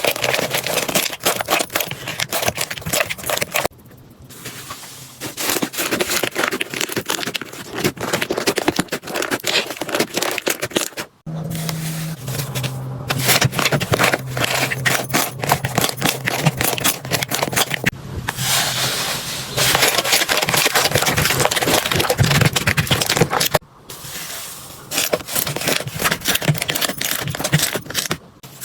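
Slime being squished, poked and stretched, giving dense crackling and popping clicks, in several short clips that cut abruptly about 4, 11 and 24 seconds in.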